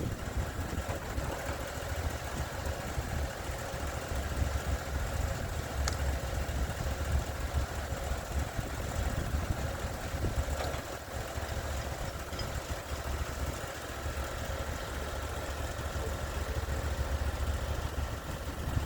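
Band sawmill's engine running steadily under load as the band blade saws through a log, with a continuous low drone and a thin steady whine above it.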